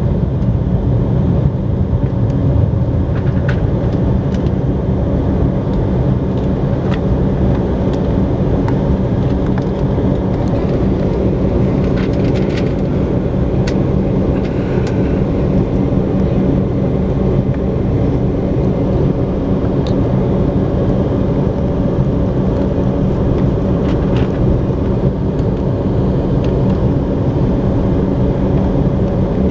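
Cabin noise of an Embraer 190 taxiing, its twin GE CF34-10E turbofans running at taxi power: a steady low rumble with a couple of faint steady hums and a few faint clicks.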